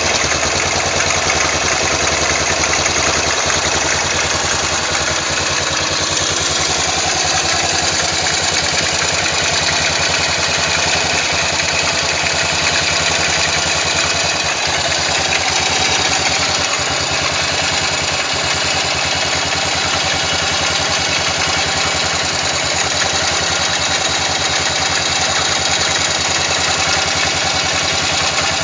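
Yamaha XT500's single-cylinder four-stroke engine idling steadily, with a strange extra noise mixed into its sound that the owner has not traced, although the valve clearances have been checked and the ignition timing set with a strobe lamp.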